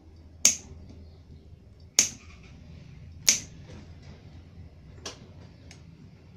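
Small diagonal side cutters snipping through the insulated output wires of a computer power supply: three sharp snips about a second and a half apart, then two fainter clicks near the end.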